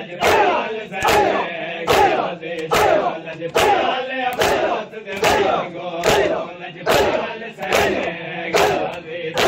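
Crowd of men doing matam, striking their bare chests with open hands in unison a little faster than once a second, in a steady beat, with men's voices chanting between the strikes.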